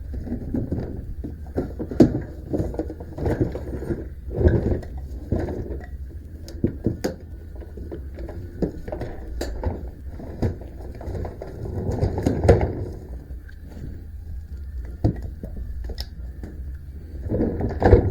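Irregular metal knocks, clicks and rustling from hands-on work adjusting a band sawmill's blade, with a steady low rumble underneath.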